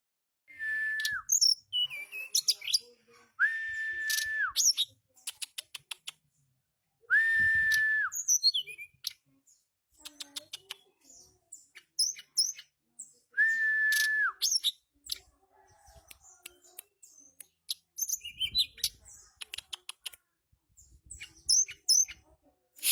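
Tledekan gunung songbird twittering in quick, high, sliding chirps and ticks. Four long, level whistled notes of about a second each sound between the chirps.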